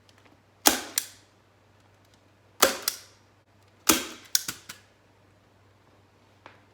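Hand staple gun firing staples to fasten plastic sheeting over a crate seat: a string of sharp snaps, some single and some in quick pairs and clusters, over about four seconds.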